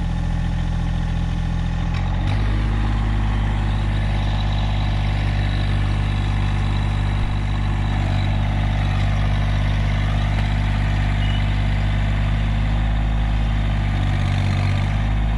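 Massey Ferguson GC1720 compact tractor's three-cylinder diesel engine running steadily while it pulls fence wire taut on its hitch; the engine note changes about two seconds in.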